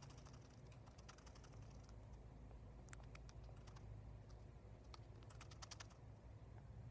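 Faint, irregular clicking from a guinea pig, in quick clusters of ticks, over a low steady hum.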